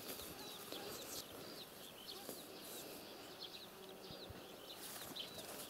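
Small birds chirping faintly: short high calls, each a quick hooked glide, repeating a few times a second over a faint background hiss.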